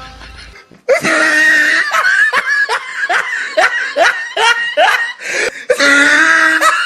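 Laughter in a fast run of short repeated bursts, about three a second, starting about a second in.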